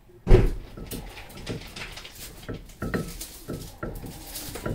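Metal clicks and knocks from a brake caliper being handled and seated over a brake disc. There is one loud knock right at the start, then lighter irregular taps, with a few brief faint squeaks.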